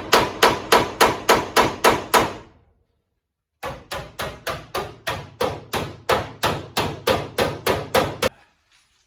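Hammer blows beating a dent out of a Dodge Dakota's steel sheet metal, about three ringing strikes a second. The blows pause for about a second, then resume in a second long run.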